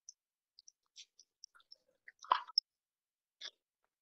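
Scattered faint clicks and ticks against an otherwise silent line, with one louder sharp knock about two and a half seconds in and a short rustling burst near the end.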